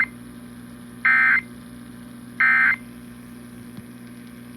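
Emergency Alert System end-of-message (NNNN) data bursts, heard through an AM radio: short digital squawks about 1.3 s apart that mark the close of the alert. The tail of one burst falls at the very start, and two more follow. A low steady hum runs underneath.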